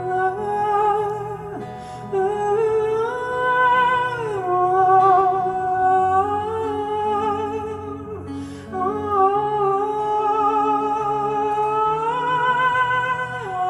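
Live pop song: a male singer holds long notes with strong vibrato, sliding between pitches, over guitar accompaniment.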